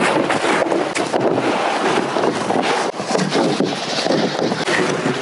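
Accordion-folded closed-cell foam sleeping pad being unfolded and spread out by hand right at the microphone: a steady rustling and scraping with many small knocks and rubs.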